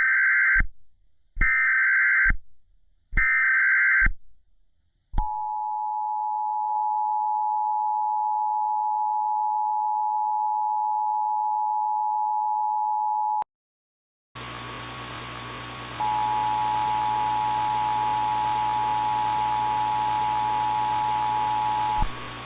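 Emergency Alert System signals. Three short screeching bursts of SAME digital header data come first, then the two-tone EAS attention signal holds steady for about eight seconds. After a brief gap, a hissing, humming relay carries the two-tone attention signal again for about six seconds.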